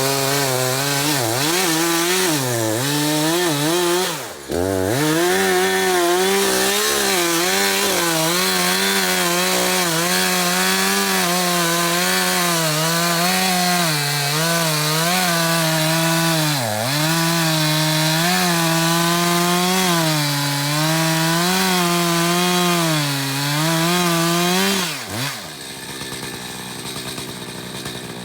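Two-stroke chainsaw running at full revs while cutting a felled sweet gum trunk, its pitch sagging and recovering as the chain bites under load, with a brief drop-off about four seconds in. Near the end it falls back to a quieter idle.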